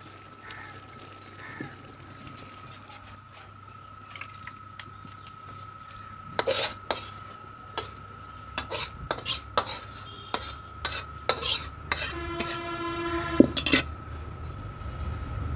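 Metal spatula scraping and knocking against a metal cooking pot as curry is served out onto a plate: quiet at first, then a run of sharp clinks and scrapes from about six seconds in, with one knock near the end leaving a brief metallic ring.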